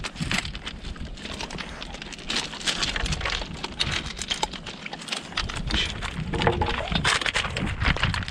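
Pebbles crunching and clicking under footsteps and dogs' paws on a stony river beach, an irregular clatter of stones knocking together, busiest in the second half.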